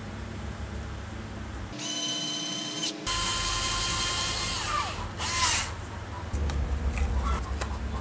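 Cordless electric screwdriver whirring in short runs from about two seconds in to about five and a half seconds, driving the screws that fasten the field coils into an aluminium drill-motor housing. The pitch steps up after the first run and bends as the tool stops.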